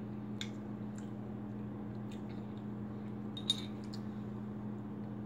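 A few faint mouth smacks and small clicks from a person tasting baby food off a spoon, over a steady low hum; the sharpest click comes about three and a half seconds in.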